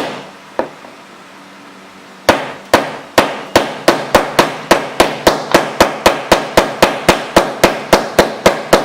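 Steel glass-breaker tip of a Sanrenmu WA741-A1 multi tool striking laminated auto glass: two single taps, then after a pause a fast run of about twenty sharp strikes, three to four a second. The tip is going through the laminated glass, cracking it rather than shattering it.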